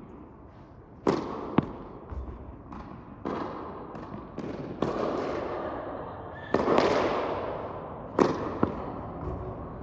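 Tennis serves in an echoing indoor court: sharp racket-on-ball hits, each followed about half a second later by a second smack, five times in a row, every impact trailing a long reverberant tail.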